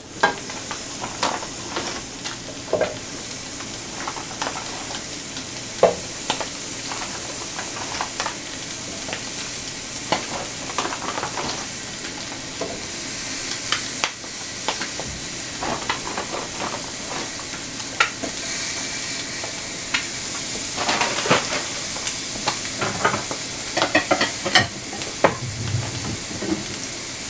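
Eggs frying in oil in a skillet, a steady sizzle, with scattered light taps and clicks as precooked sausage patties are set one by one into a second skillet.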